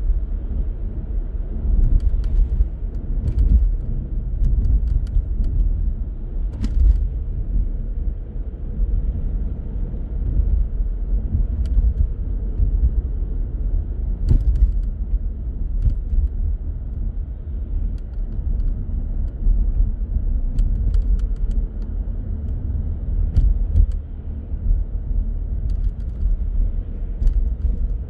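A car driving on city streets: a steady low road-and-engine rumble, with scattered light clicks and ticks on top.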